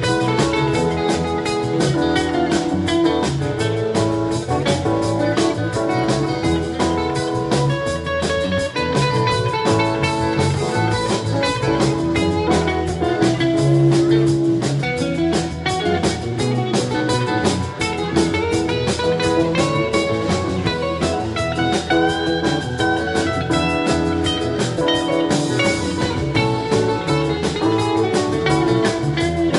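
Live rock band playing: electric guitars, bass, keyboard and drum kit, at a steady level, with some notes bending in pitch a little past the middle.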